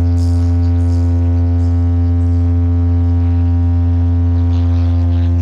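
Large stacked DJ speaker rig sounding one deep, loud, steady bass tone without a break, a sound check of the bass cabinets.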